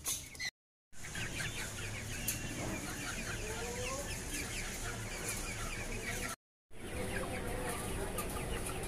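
A cage of white Silkie chickens clucking and peeping: many short high chirps over a few lower, wavering clucks. The sound cuts out twice for a moment.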